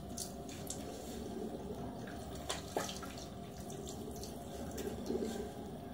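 Water splashing in a bathroom sink with scattered drips, as the face is given a quick half rinse between razor passes in a wet shave.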